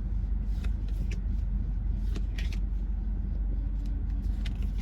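Baseball cards being flipped through by hand, a series of short soft clicks and slides, over the steady low hum inside a car.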